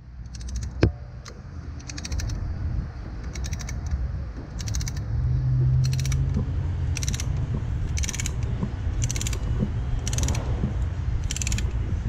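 Ratcheting brake caliper piston compressor clicking in short runs about once a second as its handle is worked, pushing the front caliper piston back into its bore.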